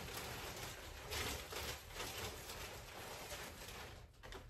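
Plastic bag rustling and soft handling noises as skeins of yarn are pulled out and set on shelves, loudest about a second in, over a low steady hum.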